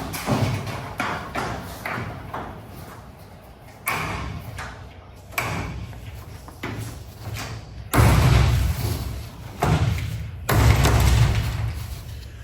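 Thumps and knocks from work on a garage door. A run of lighter knocks is followed by two heavier, rumbling thuds near the end.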